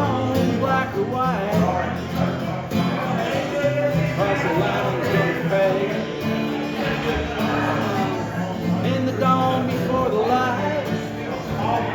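Live country-style band music: a melody line that bends and slides over steady, sustained bass notes.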